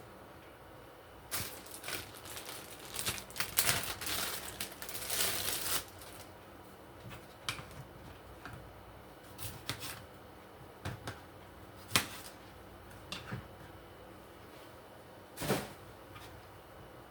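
Small handling noises: a few seconds of rustling, crinkling and clicking, then scattered single clicks and taps.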